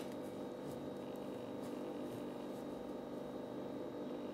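Steady faint hum of room noise.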